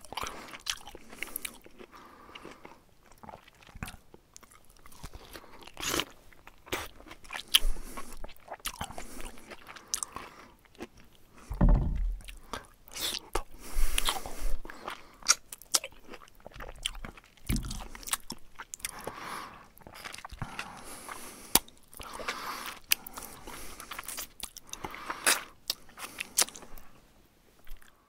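Hamster eating a mealworm held in its front paws: a rapid, irregular run of small crisp crunches and chewing clicks. A couple of louder, dull low bumps come partway through.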